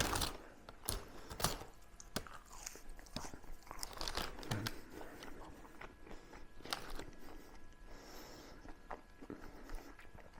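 A person chewing and eating French fries close to the microphone: irregular soft crunches and small mouth clicks.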